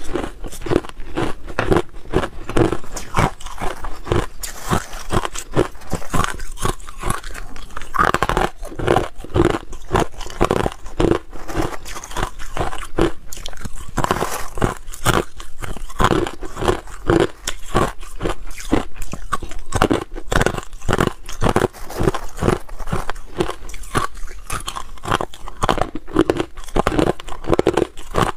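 Crushed ice being bitten and chewed, a dense, irregular run of sharp crunches and cracks that continues throughout.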